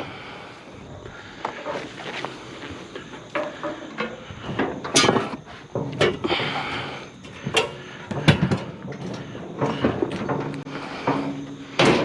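Irregular knocks and clunks from a discarded refrigerator being shifted and tipped onto a hand dolly.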